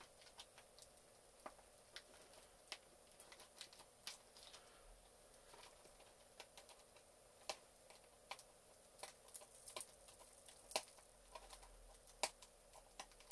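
Near silence broken by faint, irregular clicks and light taps of small objects being handled.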